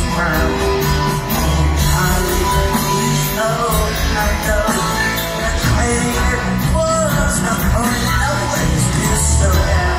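A live rock band plays a driving song with electric guitars, bass, drums and keyboards, heard from the audience with concert-hall reverberation.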